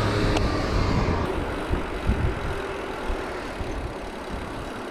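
A car's engine running close by, a low steady hum that fades away about a second in, followed by wind and road noise from a bicycle rolling on, with a few low bumps.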